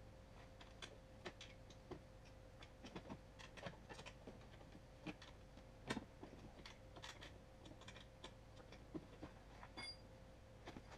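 Faint, irregular small clicks and light knocks of hands handling hardware under a car's front bumper while fitting a light bar bracket, over a faint steady hum.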